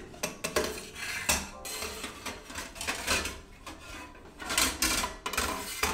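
Stainless-steel wood stove and chimney pipe parts clinking and knocking together as they are handled and fitted, a string of irregular sharp metal clanks.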